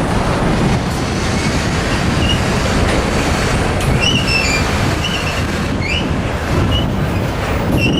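Cut of container stack cars being shoved backwards, steel wheels rumbling steadily on the rails, with short high squeals from the wheels starting about halfway through.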